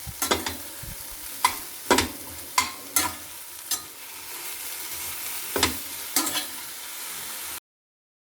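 Broccoli, onion and garlic frying in butter in a pan, sizzling steadily, while a spoon stirs the mix and knocks against the pan about eight times. The sound cuts off abruptly near the end.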